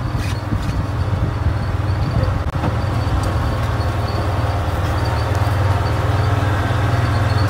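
Golf cart driving along, its motor making a steady low drone.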